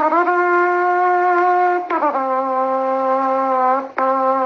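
Saxophone playing long held notes, about two seconds each: a higher note, then two notes on the same lower pitch.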